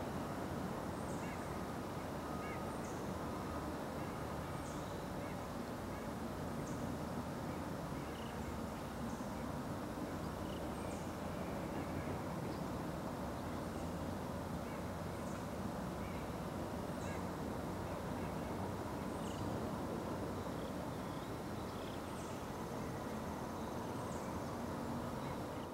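Outdoor riverside ambience: a steady low background noise with faint, high bird chirps repeated every second or two.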